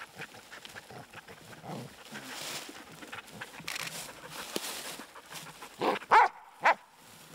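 A hunting dog gives three short, high yelps near the end, while dry leaves rustle as the dead boar is handled.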